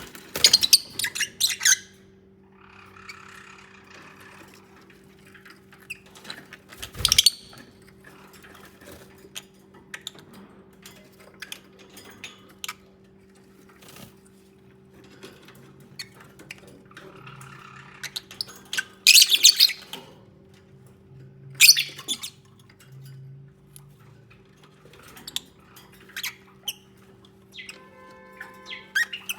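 Lovebirds chirping and squawking in short, shrill bursts: loudest about a second in, at about seven seconds and around twenty seconds, with softer twittering between. A steady low hum runs underneath.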